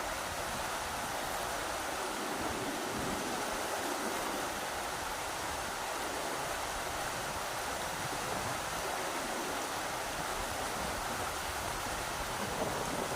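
Rushing river water, a steady, even rush with no distinct splashes or breaks.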